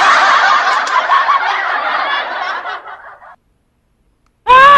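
Canned crowd-laughter sound effect triggered from the KX2i live-streaming sound card's remote, lasting about three seconds before cutting off. Near the end a second loud effect starts: a quick run of rising, pitched squeals.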